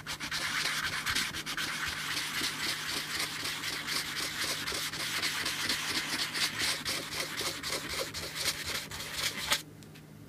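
Tobacco pipe bowl rim being rubbed on a sheet of 220-grit sandpaper laid flat, topping the rim: a rapid, continuous scratchy rasping in quick strokes that starts abruptly and stops about nine and a half seconds in.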